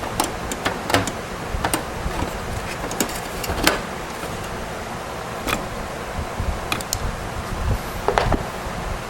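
Irregular clicks and knocks of computer case parts being handled, over a steady background hiss. The sharpest click comes a little past the middle.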